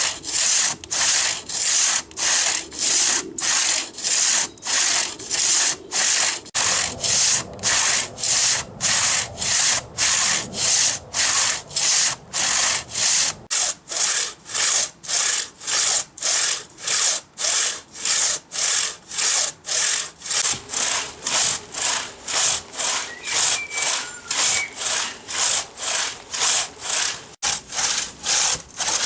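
Hand saw cutting through eucalyptus wood in steady back-and-forth strokes, about two a second, each stroke a hiss of teeth through the wood.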